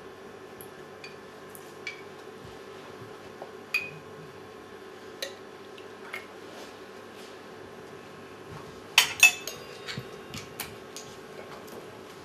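Small clinks of a stainless steel jigger and cocktail shaker being handled as syrup is measured into the shaker, with a louder pair of ringing metallic clinks about nine seconds in. A faint steady hum runs underneath.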